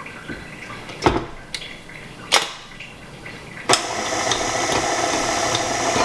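A few sharp knocks of kitchen things, then about two-thirds of the way in an electric mixer starts and runs steadily, mixing key lime juice into a pie filling.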